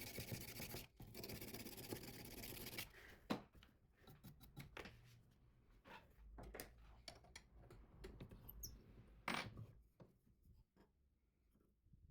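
Faint rubbing of 220-grit sandpaper stroked along a steel knife blade for about three seconds, then scattered light scrapes and clicks, with a sharper click about three seconds in and another about nine seconds in.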